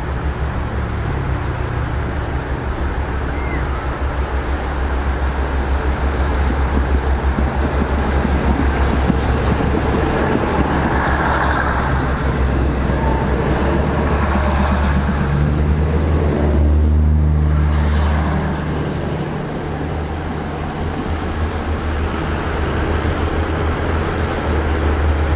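State Railway of Thailand diesel railcar train accelerating away and passing close by, its engines running under power with a steady low drone. The drone is loudest about two-thirds of the way through as the cars go past.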